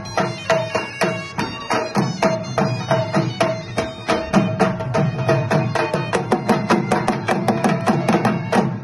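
Dhol barrel drum beaten with sticks in a fast, driving dance rhythm, with a reedy wind instrument holding a melody over it.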